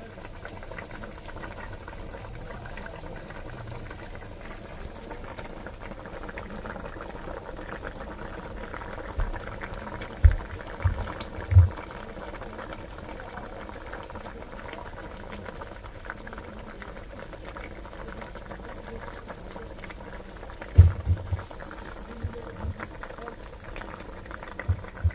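Potato and soya chunk curry boiling hard in a pot, a steady bubbling. A few low thumps come about ten seconds in and again near twenty seconds in.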